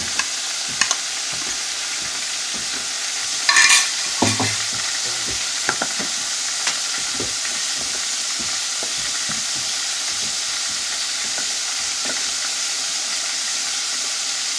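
Floured chicken tenders deep-frying in hot oil, a steady sizzle. A few sharp clicks, and a brief louder clatter and thump about four seconds in.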